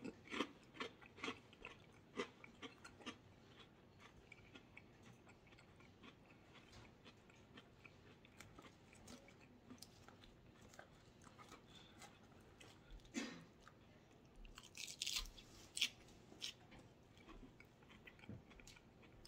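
Faint close-up chewing of antipasto salad, with small crunches and wet mouth clicks, thickest in the first few seconds. A looser run of louder clicks and rustles comes about 13 to 16 seconds in.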